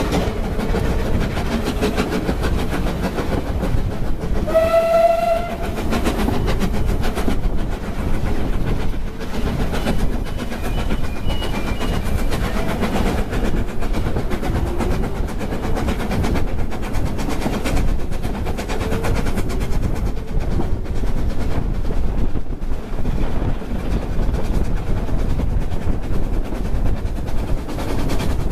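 Steam-hauled narrow-gauge train heard from inside a carriage at the open window: a steady rumble and clatter of wheels on the rails. About five seconds in, one short blast of a locomotive's steam whistle sounds over it.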